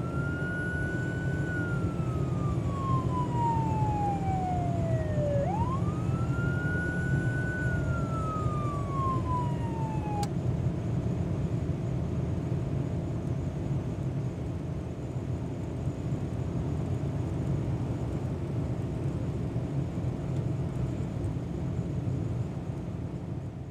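Police car siren in wail mode over the car's running engine and road noise. Two cycles are heard, each a quick rise then a slow fall lasting about five seconds. The siren cuts off with a click about ten seconds in, leaving the steady engine and road noise.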